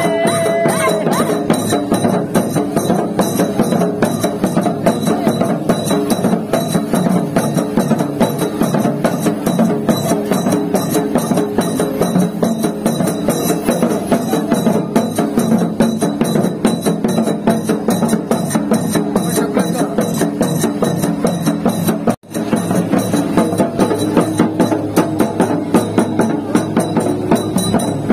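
Double-headed barrel drums beaten with sticks in a fast, steady folk rhythm, with small hand cymbals clashing along. The sound drops out for an instant about three-quarters of the way through.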